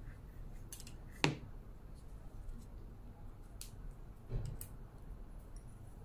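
A few light clicks and knocks from handling pottery on a worktable: one sharp click about a second in, a softer knock a little past four seconds, and a few faint ticks between.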